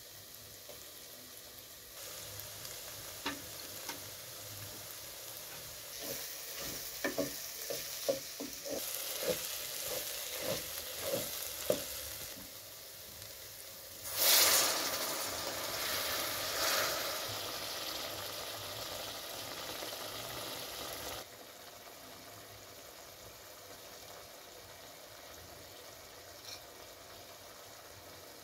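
Chopped herbs frying in an aluminium pot, with a series of sharp clicks as a spoon stirs and taps in the pot. About 14 seconds in, water from a kettle hits the hot pot with a sudden loud hiss that fades over several seconds, then cuts off abruptly to a faint steady sizzle.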